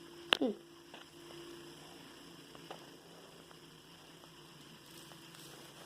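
Low steady hum of room tone, broken about a third of a second in by one sharp click, with a few faint ticks after it.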